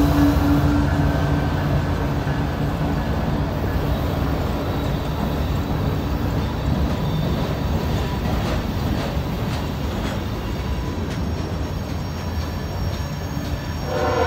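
Diesel freight locomotives and then the first freight cars rolling past close by, a steady heavy rumble with scattered wheel clicks over the rail joints. A train horn starts sounding right at the end.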